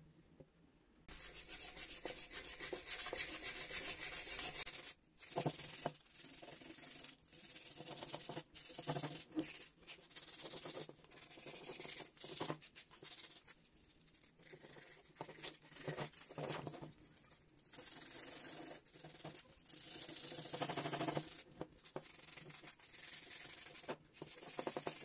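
Filler on a bicycle suspension fork's arch being hand-sanded with sandpaper on a sponge block to smooth it. Repeated scratchy back-and-forth rubbing starts about a second in and runs in spells with short breaks between them.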